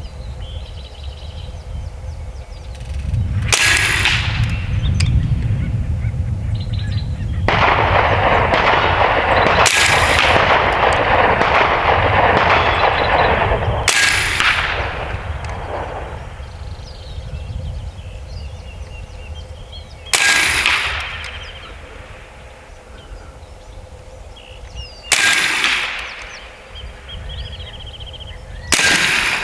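AEA Terminator .30 caliber semi-automatic PCP air rifle fired six times, each shot a sharp crack with a short ring, spaced about four to six seconds apart, as the magazine is emptied. A loud rushing noise runs for about seven seconds in the middle.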